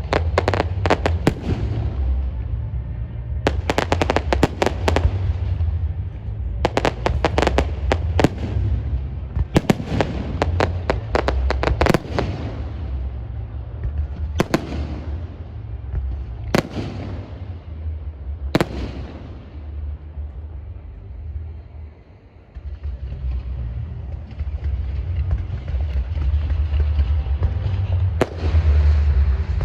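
Firecrackers going off: clusters of rapid sharp cracks, then three single bangs about two seconds apart, and another quick string near the end, over a steady low rumble.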